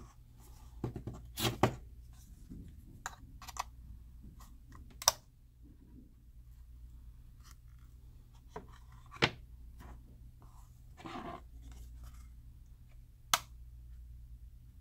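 Metal blade scraping and prying in the seam of an external hard drive enclosure, against the plastic locks holding the drive, with a few sharp clicks of blade or plastic now and then.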